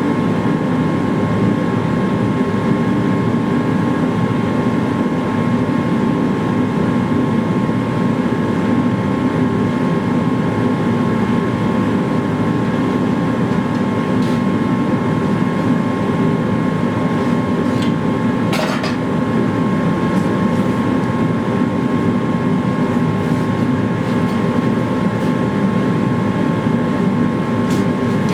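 Forge running steadily for heat treating a sword blade: an even rushing noise with a steady whine in it. There is one brief sharp click about two-thirds of the way through.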